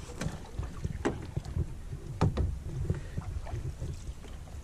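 Kayak being paddled: water swishing off the paddle blade, with a few light knocks, the loudest just over two seconds in, over a low wind rumble on the microphone.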